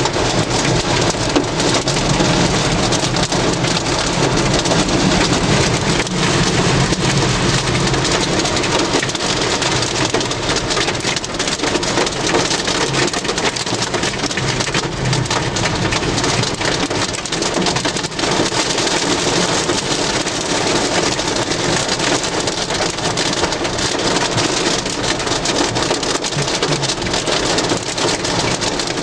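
Heavy rain beating steadily on a vehicle, heard from inside, during a tornado-producing thunderstorm.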